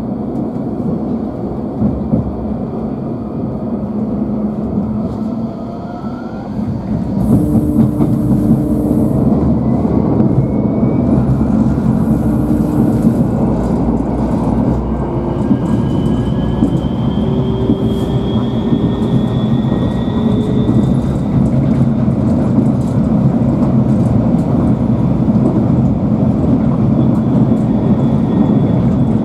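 Electric tram heard from inside while running: a steady rumble of wheels on rail that grows louder about seven seconds in. Two short steady tones sound about seven and twelve seconds in. From about fifteen seconds a thin motor whine rises slowly in pitch as the tram gathers speed.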